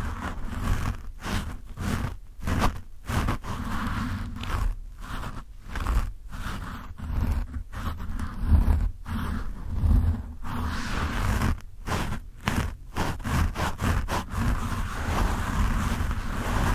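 Fingertips scratching and rubbing a foam microphone windscreen: a rough scraping with a deep rumble, in irregular strokes broken by many brief pauses.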